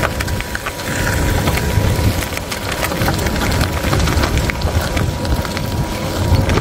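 Golf cart's small tyres rolling over a sandy gravel path: a steady crunching and crackling of grit under the wheels over a low rumble.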